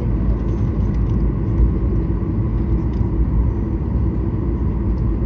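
Steady low rumble inside the cabin of a Boeing 737-800 taxiing after landing: its CFM56 engines idling and the wheels rolling over the taxiway.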